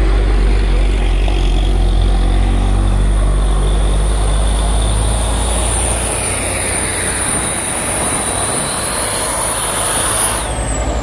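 Heavy diesel trucks driving past: a low engine drone for the first half, then a box truck approaches with a high whine that drops in pitch as it passes close about ten seconds in.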